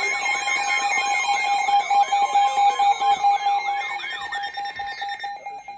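Weather radio alert alarm sounding for a new severe thunderstorm warning: a repeating warbling, siren-like tone over a steady beeping tone. The warble fades out near the end while the beeping tone carries on.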